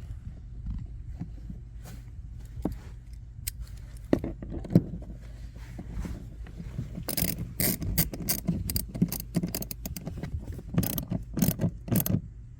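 Ratcheting hand tool clicking in quick runs through the second half, with scattered knocks and taps before it, while a wire's ground terminal is being fastened.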